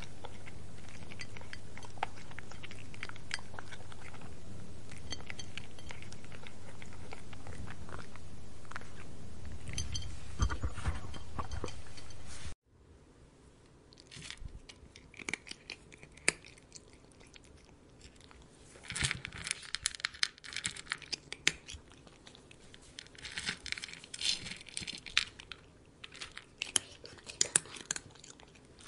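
A cat eating: repeated chewing clicks in bursts. About twelve seconds in, the sound cuts abruptly from a steady hissing background to a quieter one, where the chewing comes in clustered bursts.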